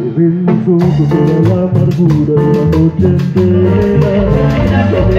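Live band playing Latin dance music: a male singer over bass guitar and steady percussion.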